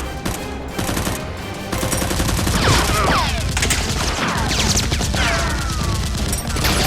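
Background action music with a driving beat under rapid bursts of dubbed gunfire sound effects, with a few falling sweeps about halfway through.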